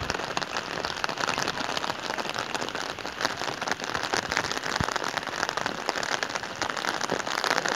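Steady rain pattering, a dense crackle of many small drops.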